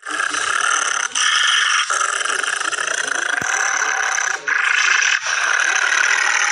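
Rottweiler snarling and growling aggressively, a harsh continuous noise broken off briefly a few times.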